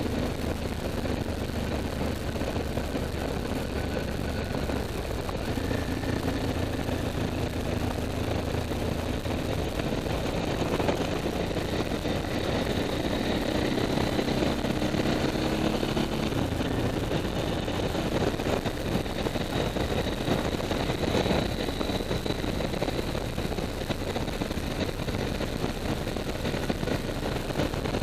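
Motorcycle engine running while riding at road speed, under a steady rush of wind and road noise; the engine note shifts in pitch a few times.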